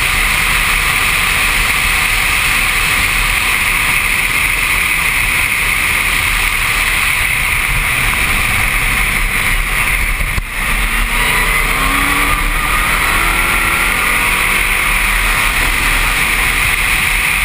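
A 300 hp Pescarolo Le Mans prototype's engine running at speed, with heavy wind rush on an open-cockpit helmet camera. About ten seconds in the level dips briefly, then the engine note climbs as the car accelerates again.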